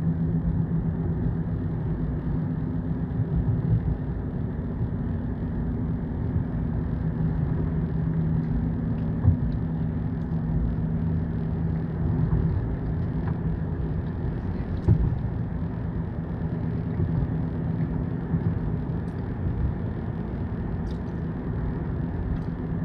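A car driving along a road, heard from inside the cabin: a steady engine and tyre rumble with a low hum that fades in and out a few times.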